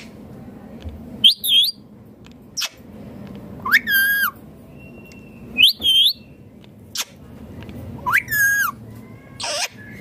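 Male rose-ringed (Indian ringneck) parakeet calling: five short calls, each bending up and then down in pitch, about two seconds apart. Two sharp clicks fall between the calls.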